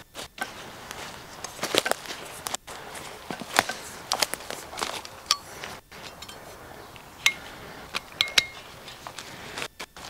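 Footsteps through forest litter, with twigs and sticks cracking underfoot in irregular sharp snaps, then spruce branches rustling and snapping as they are pulled. A few short high chirps sound in the second half.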